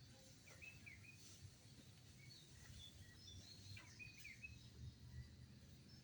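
Faint birds chirping over low background rumble: short runs of chirps about half a second in and again around four seconds.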